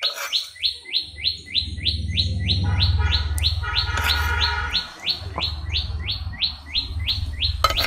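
A bird calling in a fast, even series of short high chirps, about three to four a second, with a low rumble underneath.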